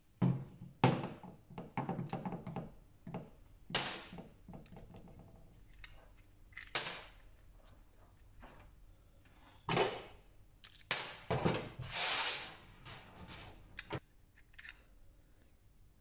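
Hard plastic parts of a Mercedes W204 COMAND controller knob clicking, knocking and rattling as they are handled and pulled apart: a string of separate sharp clicks, with a longer rattling stretch about eleven seconds in.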